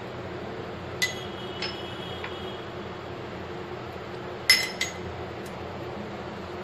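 Steel spoon clinking against a glass mixing bowl and small stainless steel bowls as spice powder is spooned in. Three light ringing clinks come in the first couple of seconds, then a sharper double clink about four and a half seconds in, over a steady low hum.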